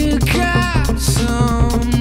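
Background music with a steady funk beat: bass, drums and a gliding lead line.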